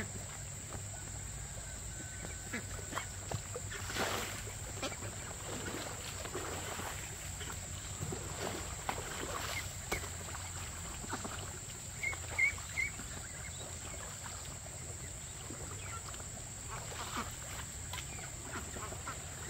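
Ducks and young chicks moving and feeding, with scattered light clicks and knocks and three short high peeps about twelve seconds in.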